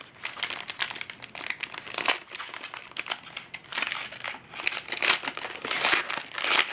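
Crinkling of a foil hockey card pack wrapper being handled and pulled open, in irregular crackly bursts.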